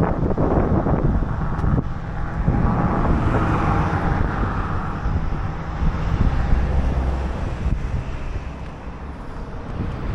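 Wind rumbling on the microphone, with a rushing noise that swells and fades about three to five seconds in.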